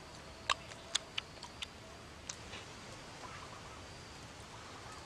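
Mouth sounds of eating shellfish: a handful of short, sharp clicks and smacks in the first two and a half seconds, then only a faint steady background.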